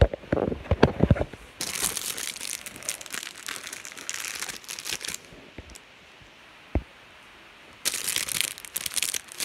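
Foil wrapper of a Crazy Bones pack crinkling as it is handled and squeezed in the hands, in two spells, the second starting near the end. A few knocks of handling come at the start and one more in the quieter middle stretch.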